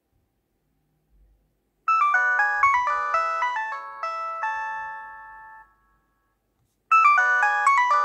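A Nokia mobile phone's polyphonic ringtone: a quick run of bright, bell-like notes starts about two seconds in, then slows and fades away. The same melody starts again near the end as the call keeps ringing.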